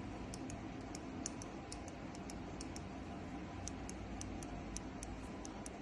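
The clasp of a Rolex Datejust 36mm bracelet gives a run of small, sharp, high-pitched metallic clicks, a few a second, with a short pause midway. This is the annoying clasp noise the owner sets out to cure.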